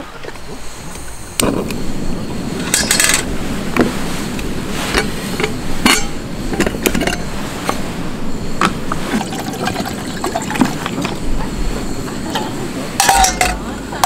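Metal camp cookware clinking and knocking as pots, lids and a small kettle are handled, over a steady rushing noise. Near the end, water is poured from the kettle into a pot.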